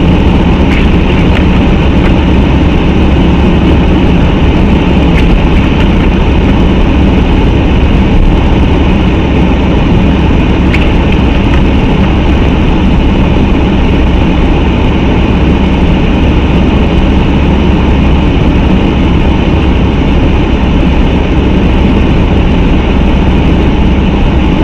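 Steady rumble of a car driving at road speed, its engine and tyre noise heard from inside the cabin.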